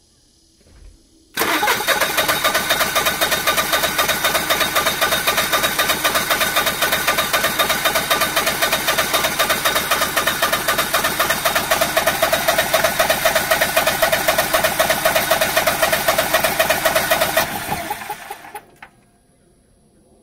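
Generac 20kW LP standby generator's engine being cranked by its starter: after a faint click, about 16 seconds of steady, evenly pulsing cranking, then it winds down near the end without the engine taking off. It is one crank cycle of a no-start, with the battery holding about 11.5 V under the starter's load.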